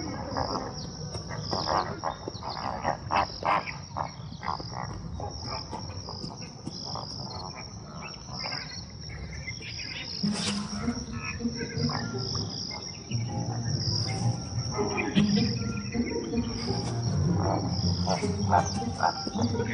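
Insects chirping steadily in a high band, with a run of short clicking calls in the first few seconds and low drawn-out tones coming in about halfway through.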